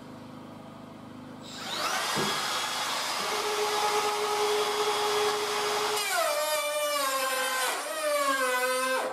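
Cordless Makita 18 V trim router with a biscuit slot cutter, spinning up with a rising whine about one and a half seconds in and cutting a slot in the end of an oak handrail. About six seconds in its pitch drops and wavers as it slows, sinks again near the end, and then it stops: the battery is running flat.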